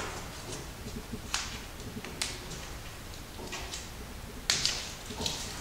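A blade slitting the plastic outer sheath of a 14/2 NM-B electrical cable end: several short, sharp scrapes and clicks at uneven intervals, the loudest about four and a half seconds in.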